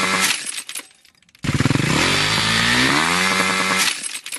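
An engine held at very high revs, its pitch climbing, then stopping abruptly with a few rattling clicks as it dies. The same rev-and-cut-off sequence is heard twice, with a second of near silence between.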